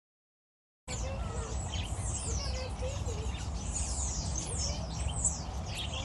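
Many birds chirping together in rapid, overlapping, high falling chirps mixed with some lower squiggly calls, over a steady low rumble. The sound begins abruptly about a second in.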